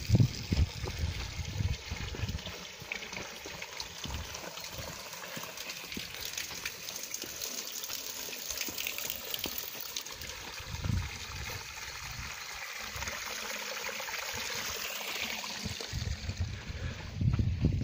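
Spring water running and trickling through a stone channel and basin in a steady hiss. There are a few low thumps, louder near the end.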